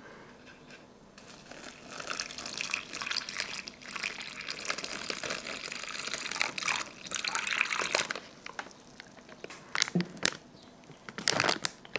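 Water poured into a plastic MRE hot beverage bag onto instant coffee, creamer and sweetener powder: a steady pour that starts about a second in and stops about eight seconds in. A few crinkles of the plastic bag follow near the end.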